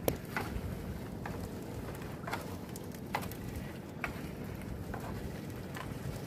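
Water dripping and splashing in small irregular patters, about one a second, as a wet gill net is hauled aboard a small fishing boat, over a steady low rumble of wind on the microphone.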